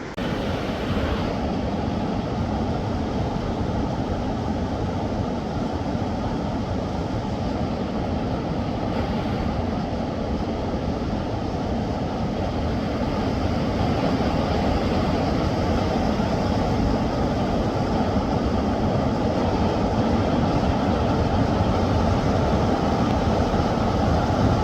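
Steady roar of a fast-flowing mountain river, growing slightly louder over time.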